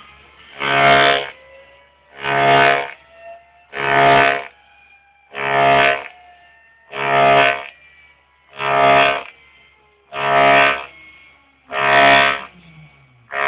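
CNC mill cutting aluminium: a loud, pitched buzzing chatter on each pass, repeating about every one and a half seconds, nine times. Faint whines glide up and down in pitch between the passes.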